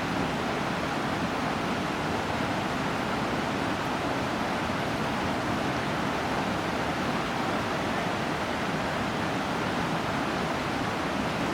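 Veterans Falls rushing: a steady, unbroken roar of falling water.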